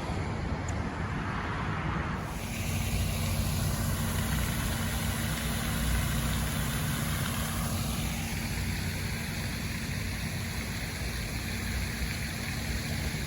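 Vehicle engine idling, a steady low rumble with a steady hum that sets in about two seconds in.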